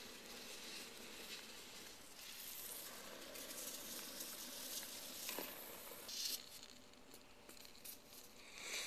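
Aerosol can of low-expansion spray foam hissing unevenly as foam is dispensed, easing off about six seconds in.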